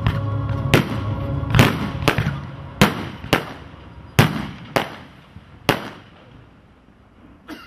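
Consumer fireworks cake ('Black Bomber' multi-shot battery) firing its last shells: about eight sharp bangs from aerial bursts over some six seconds, coming unevenly and growing fainter, then one small pop near the end as the cake finishes.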